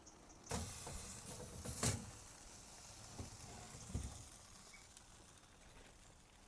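Hiss of sizzling food that starts suddenly about half a second in and fades away, with a sharp knock near two seconds and two softer knocks after it.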